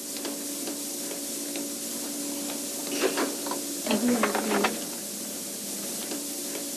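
Steady hiss with a constant low hum, broken by a few brief clicks and rattles about three and four seconds in.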